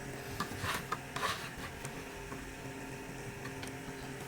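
Steady hum of a fan running, with a few faint light clicks in the first second and a half.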